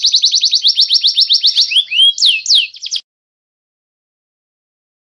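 Songbird singing: a fast, even trill of about a dozen high repeated notes a second, slowing into a few quick sliding whistles, then stopping suddenly about three seconds in, followed by silence.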